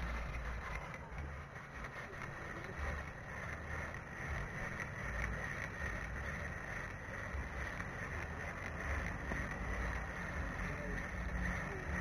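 Wind buffeting the camera microphone in uneven low gusts, over a steady faint hiss.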